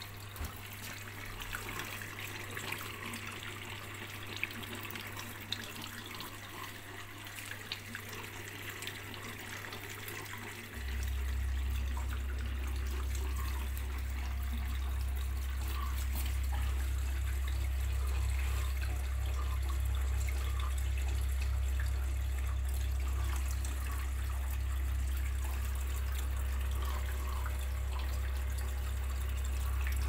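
Beko front-loading washing machine mid-cycle with water rushing inside it. About eleven seconds in, a loud low hum starts abruptly and runs on steadily.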